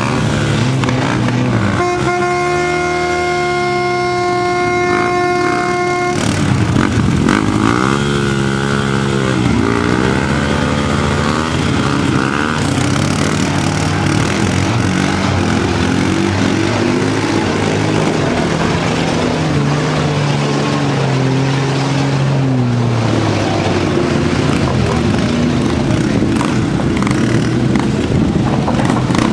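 Quad bike (ATV) engines revving up and falling back again and again as they climb a steep dirt track. Near the start a steady horn note sounds for about four seconds.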